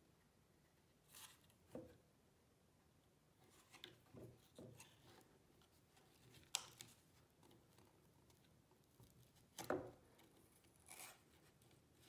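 Faint, scattered rustles and small clicks of twine and corrugated cardboard being handled as the cord is threaded through a knife awl's loop and pulled through, with one sharper tick about six and a half seconds in.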